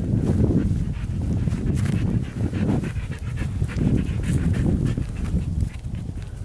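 Cattle dog panting close to the microphone, a steady run of breaths about two a second.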